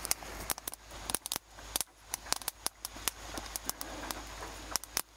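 Small fire of dry split kindling crackling, with many short sharp irregular pops and snaps, as more sticks are laid on it.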